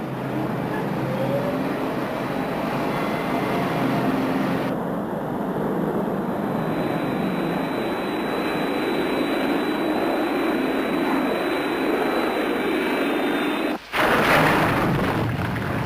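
Jet engine sound effect of the Thunderbird 1 rocket plane in level flight, a steady rush. About fourteen seconds in it breaks off abruptly and gives way to a louder, harsher rushing noise.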